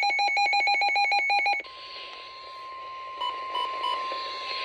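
An electronic alert beeps rapidly, about ten pulses a second, for the first second and a half. Then the NOAA Weather Radio 1050 Hz warning alarm tone sounds steadily through radio hiss, the tone that signals a warning is about to be read. Three short high beeps come over the steady tone a little past the middle.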